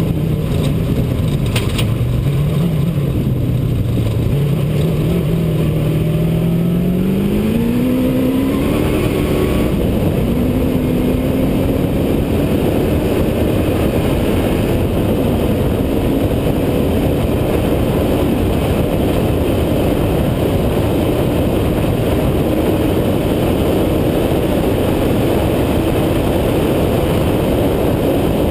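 Off-road race truck's engine heard from inside the cab, climbing in pitch over several seconds as it accelerates, then running steady at high revs at speed, over a constant rumble of road and wind noise.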